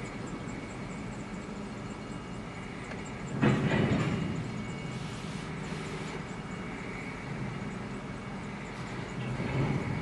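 Freight train's hopper cars rolling past on the rails, a steady rumble of wheels on track, with a sudden louder clank about three and a half seconds in and a smaller swell near the end.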